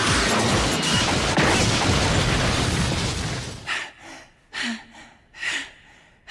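A loud crash and rumbling impact from an anime fight, with music underneath, that dies away a little after three seconds. Then three short, hard panting breaths about a second apart, the fighter winded by the strain of the Primary Lotus.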